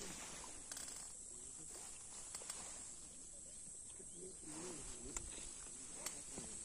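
Steady high-pitched insect shrilling, with faint distant voices and a few light clicks.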